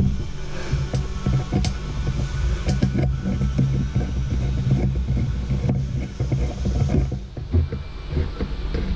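A flathead screwdriver tightening a stainless worm-drive hose clamp on a bilge hose, giving small irregular clicks and scrapes over a steady low hum.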